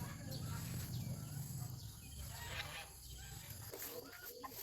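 Farm poultry making scattered short calls over a low steady rumble that fades out near the end.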